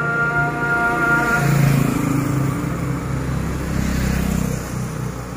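Motorcycles riding past on the road, their engines swelling to a peak about two seconds in and again near four seconds, then fading. In the first second and a half a steady high-pitched tone with several overtones sounds over them and then stops.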